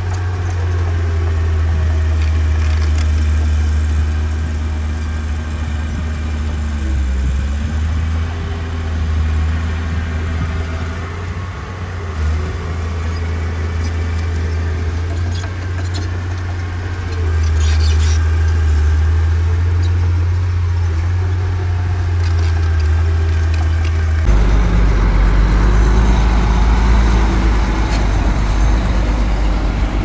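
Heavy construction machinery diesel engines running steadily with a deep low hum and a few faint clanks. About 24 seconds in, the sound changes suddenly to a deeper, heavier engine note.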